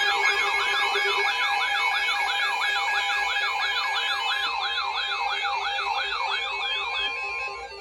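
Electronic siren-like alert tone warbling quickly up and down, about three sweeps a second, over a steady electronic tone. It cuts off shortly before the end.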